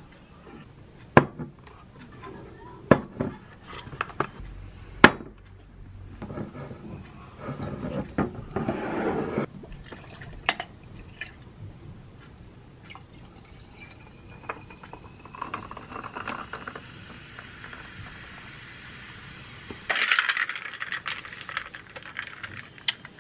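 Glassware and ice being handled: several sharp knocks and clinks in the first few seconds. Then liquid is poured into a glass of ice cubes, with a faint tone that slowly rises as the glass fills, and a louder pour near the end.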